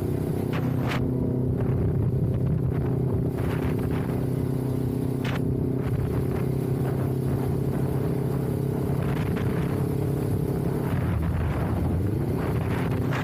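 Kawasaki Ninja 400's parallel-twin engine running steadily under way, with wind noise on the camera's internal microphone. About eleven seconds in the engine note dips and then rises again.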